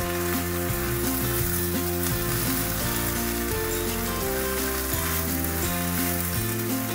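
Rice and shredded cabbage sizzling in oil in a wok as they are stir-fried with a spatula, a steady hiss under background music.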